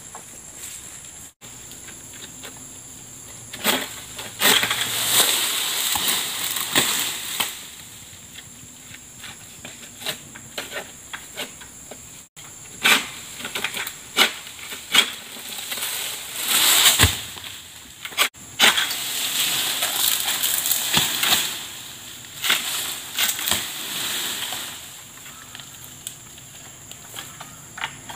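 An SBL M222A long-pole sickle cutting oil palm fronds and fruit bunches: irregular sharp cracks and scrapes, with stretches of rustling a few seconds long as cut fronds drag and fall. A steady high insect hum runs underneath.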